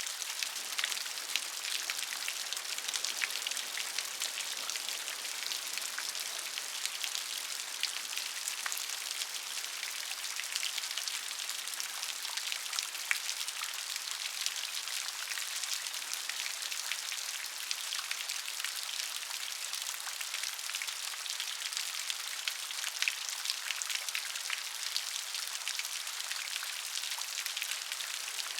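Steady rain falling, a continuous hiss of many small drops pattering on a surface.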